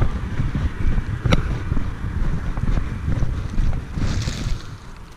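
Wind buffeting the microphone: a gusty low rumble with a sharp click about a second and a half in and a brief hiss near the end, then the wind drops away.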